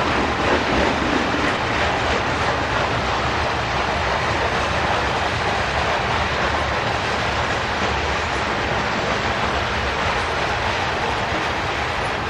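Covered hopper cars of a freight train rolling past at close range, their steel wheels running on the rails in a steady, continuous noise.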